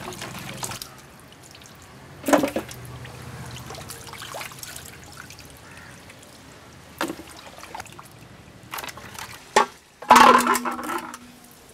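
Water pouring and trickling as raw chicken pieces are washed by hand in a vessel. A few sudden splashes or knocks break in, about two and seven seconds in, and the loudest one about ten seconds in, with a brief ring.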